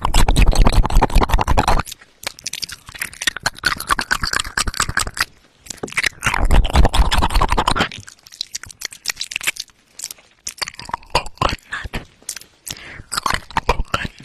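Close-up wet mouth sounds right on a binaural microphone's ear: dense clicking, smacking and crackling. Two louder stretches of muffled rubbing with a deep rumble come at the start and again about six seconds in, as the lips press and rub against the ear.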